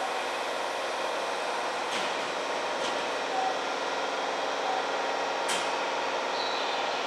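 Steady hum of a Nagoya Municipal Subway 2000 series train standing at an underground platform, its equipment and ventilation running, with a few faint clicks.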